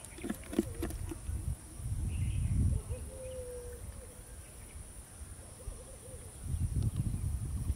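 Outdoor ambience: a steady high insect drone, twice broken by low rumbles of wind on the microphone, with a few light clicks early on as a fishing line and hook are handled, and a short low call about three seconds in.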